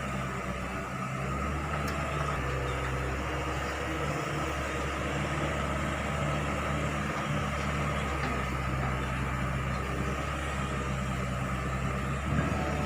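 Hitachi Zaxis 110 excavator's freshly overhauled diesel engine running steadily, with a steady high whine above the low engine hum.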